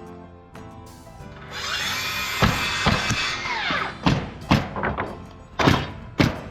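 Background music with a run of sharp wooden thunks, about two a second in the second half, typical of siding boards being nailed onto a wall frame.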